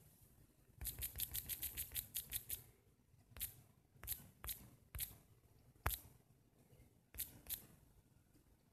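Taps on a smartphone's on-screen keyboard while typing a search: a quick run of about a dozen light taps from about a second in, then single taps spaced half a second to a second apart.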